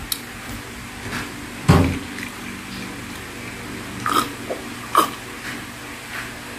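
A woman drinking from a glass, with a couple of short swallowing gulps about four and five seconds in. A low thump comes earlier, about two seconds in, and a steady low hum runs underneath.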